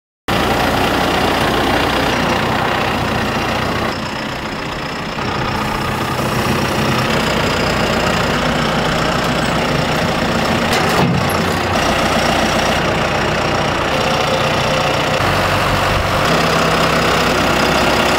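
John Deere utility tractor's diesel engine running steadily while its front loader with pallet forks moves a pallet of feed bags. The sound shifts abruptly a few times, about four seconds in and again near sixteen seconds.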